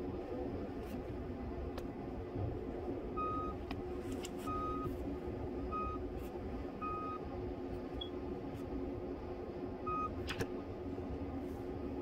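Compact loader with a snow pusher, its engine running steadily while its reverse alarm gives short single beeps about a second apart, five in all with a longer gap before the last. A couple of sharp clicks or knocks, the loudest about ten seconds in.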